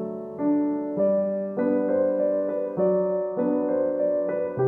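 Background solo piano music, new notes struck about once or twice a second over held notes.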